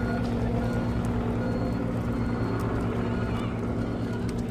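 A vehicle engine running steadily, a low hum with a steady pitch, with a few faint short beeps now and then.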